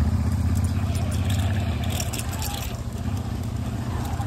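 Motorcycle engine running steadily at low revs while riding an off-road forest track, with scattered clicks and rattles about one to three seconds in.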